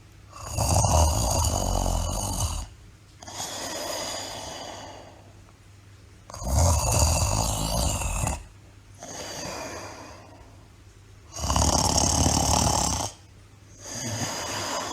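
Snoring in a slow, even rhythm: three loud snores about five seconds apart, each followed by a quieter, softer breath before a short pause.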